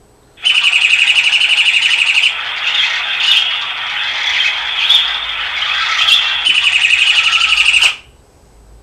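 A cell phone ringtone of bird chirps and trills, playing very loudly through the phone's speaker. It opens and closes with a fast, high trill, with more varied chirping between, and cuts off abruptly near the end.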